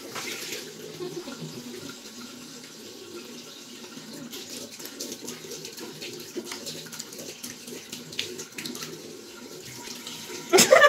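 Bathroom tap running into a sink while a face is washed by hand, with small irregular splashes of water. A brief loud burst comes near the end.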